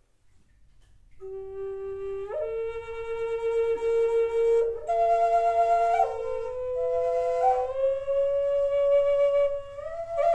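Solo flute playing a slow melody of long held notes, coming in about a second in.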